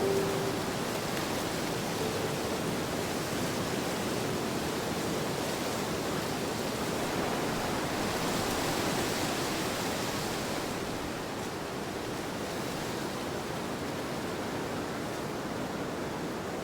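Steady, even rushing noise of a nature soundscape, with no music. The hiss softens slightly in its upper range after about ten seconds.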